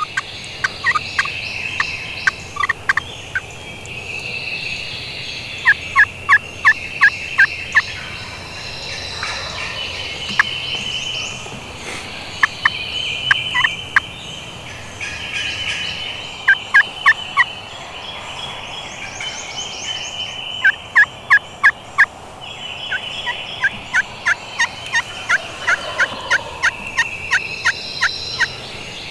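Slate pot turkey calls scratched with wooden strikers: two callers trading runs of hen yelps, five to seven sharp notes at a time, with higher scratchy calling between the runs, imitating a flock of hens.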